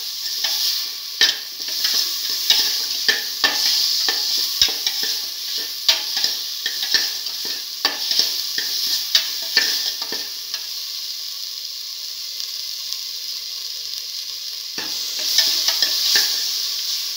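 Chopped onion, tomato and ivy gourd sizzling in oil in a pressure cooker while a spoon stirs and scrapes them, its strokes clicking against the metal. About ten seconds in the stirring stops, leaving a steady sizzle, and it starts again near the end.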